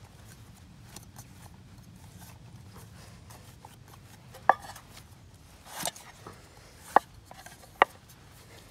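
Pizza dough being kneaded by hand in a stainless steel pot on a wooden chopping board: soft rubbing and pressing at first. From about halfway through come four sharp knocks of the pot against the board, one of them a rougher scrape.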